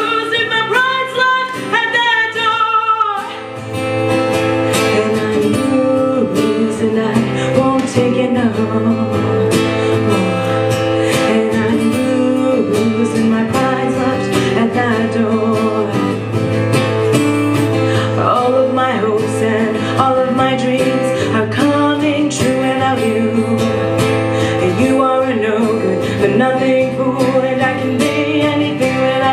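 A live song: a woman's sung phrase with vibrato for the first three seconds, then an instrumental passage of guitar over a steady bass line.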